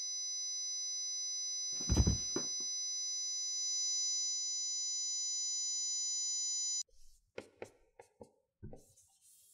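A steady, high-pitched electronic ringing of several tones held together, with a loud thump about two seconds in, cuts off abruptly about seven seconds in. After that come faint short strokes of a marker writing on a whiteboard.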